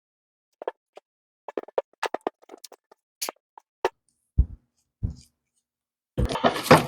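Scattered light clicks and knocks of metal parts and hand tools being handled on a workbench, with two dull thuds about four and five seconds in. A louder burst of noise follows near the end.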